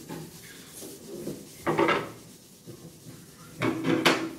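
A folded pad rubbing oil into a wooden cutting board, in a couple of louder wiping strokes, with a sharp click near the end.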